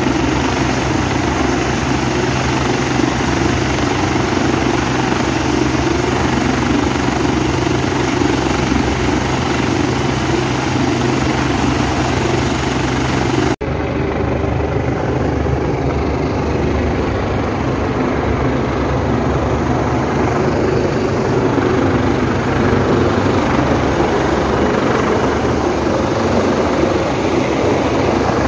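A large helicopter's turbines and rotor running on the helipad with a steady low hum; after an abrupt cut about halfway, the same helicopter in flight, its rotor noise continuing as it comes in to land.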